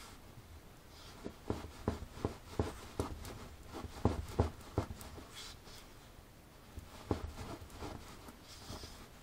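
Small shaggy dog rolling and wriggling on its back, its paws and claws scraping and knocking on the floor in a string of irregular short scrapes, thickest in the first half.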